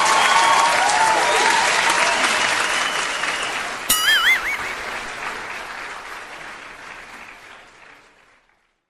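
Audience applause and cheering that fades away gradually over several seconds. About four seconds in, a sudden click is followed by a brief warbling tone.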